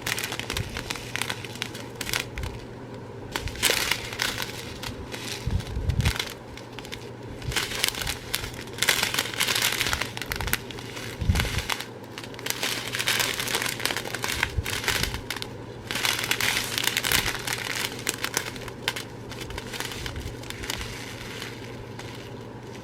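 Small plastic bags of diamond-painting drills crinkling as they are handled and opened, in irregular crackly clusters with a couple of dull knocks, over a faint steady hum.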